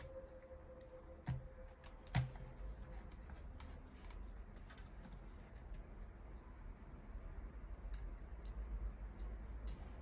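Plastic housing of an Autel MP808 scan tool being handled and pressed together: two sharp clicks about one and two seconds in, then scattered light clicks and taps.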